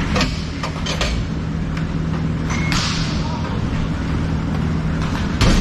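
Inline hockey play in an echoing indoor rink: scattered sharp clacks of sticks and puck, the loudest near the end, over a steady low hum.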